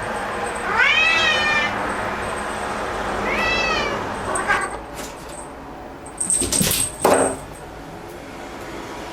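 Black cat meowing loudly, worked up at a bug it has spotted: two long meows that rise and then fall, a short one, then a couple of short, harsher sounds about two-thirds through.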